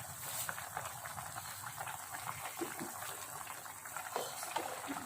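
Pot of beef rib soup boiling on the stove, a steady bubbling with many small pops: the soup is cooked.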